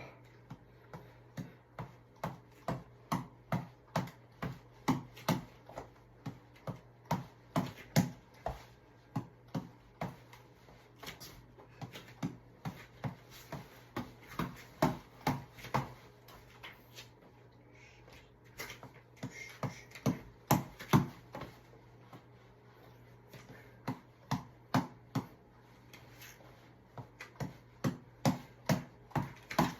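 A tap ball being struck over and over, sharp hits at about two a second, in runs broken by short pauses where the rally stops.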